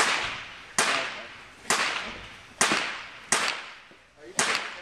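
Gunshots at an outdoor shooting range: six sharp reports roughly a second apart, each with a long echoing tail.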